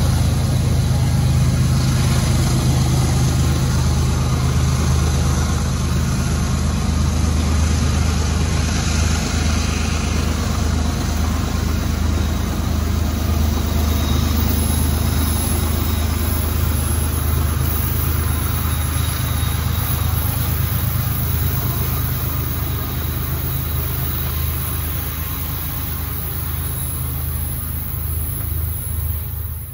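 Diesel freight locomotives running, a steady low engine rumble that slowly grows quieter.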